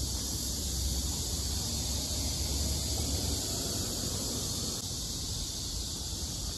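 Steady outdoor background noise: an even high-pitched hiss with a low rumble underneath that eases after about three seconds.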